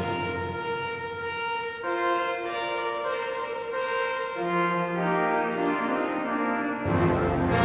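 Brass ensemble playing held chords of a stately hymn tune, changing every second or so. A fuller, louder sound with deep bass enters near the end.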